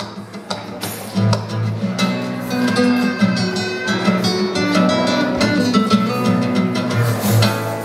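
Two nylon-string classical guitars played together as a duo, plucked notes and strums. Lighter for the first two seconds, then fuller and busier.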